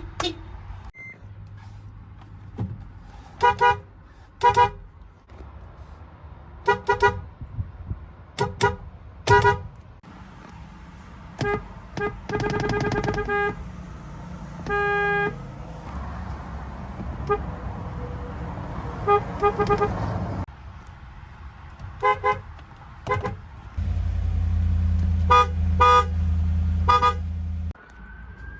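Car horns of several different pitches honked in turn: mostly short toots, often in quick pairs, with a few longer held blasts near the middle. A steady low rumble sits under the last few toots near the end.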